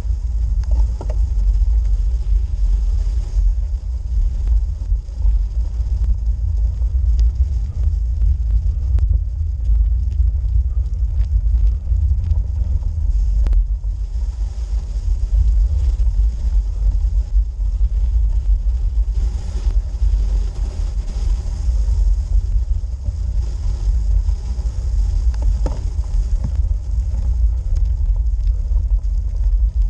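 Steady low rumble of a road bike rolling slowly uphill on a snow-dusted forest track: tyre and frame vibration picked up through the bike-mounted action camera, with a few faint clicks from the rough surface.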